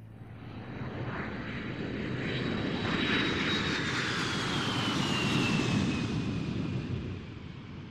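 An aircraft fly-past sound effect: engine noise swells up, a whine falls in pitch as it passes, and the noise then fades away.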